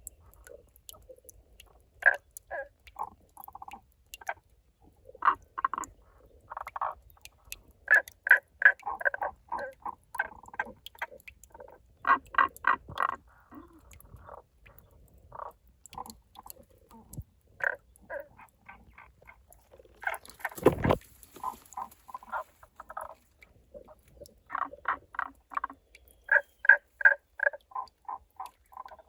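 Tago's brown frogs calling: short runs of rapid, rolling croaks, several notes in each run, repeated again and again. A single dull thump about two-thirds of the way through.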